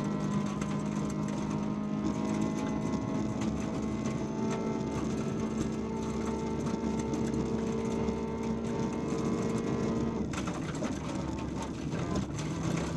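In-car sound of a VW Polo 1.4 16V four-cylinder rally engine held at high revs at a steady pitch on a gravel stage, over the constant rush and patter of tyres and gravel. About ten seconds in the engine note breaks off as the driver lifts or shifts, then comes back at a lower pitch near the end.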